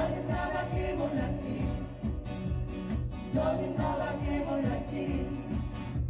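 Amateur group of several men and women singing together while strumming acoustic guitars: a steady strummed accompaniment under a sung melody.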